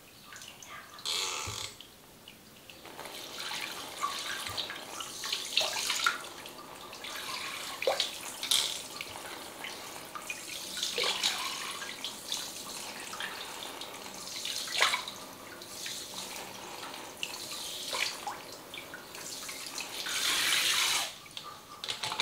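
Water from a handheld shower head rinsing wet hair and splashing into a shampoo basin, with scattered drips and splashes and a louder stretch of spray near the end.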